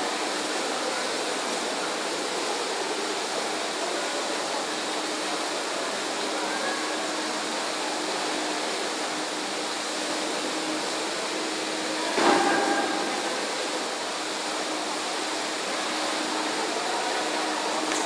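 Steady rushing noise of splashing water and a distant crowd echoing in an indoor swimming pool hall. A brief, sharp, louder sound cuts through about twelve seconds in.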